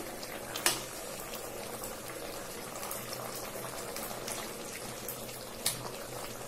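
Egg curry simmering in a metal kadai, a steady bubbling, while a spoon stirs it. The spoon knocks against the pan twice, about a second in and near the end.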